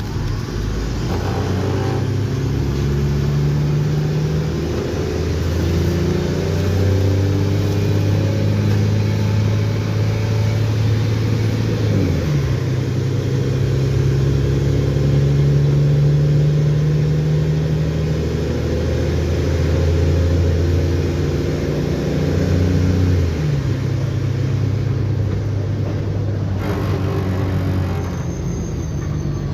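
Mercedes-Benz O-500M city bus engine accelerating through its Voith automatic gearbox. The engine note climbs, drops at a gear change about twelve seconds in, climbs again, and drops at another gear change about twenty-three seconds in.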